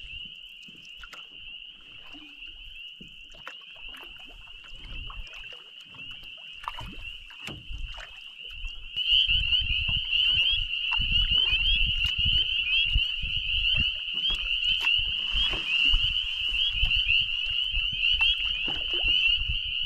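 A chorus of frogs calling in a steady, high-pitched, pulsing din that grows louder about nine seconds in. Under it, from about the same point, there are low knocks and rumble from the canoe.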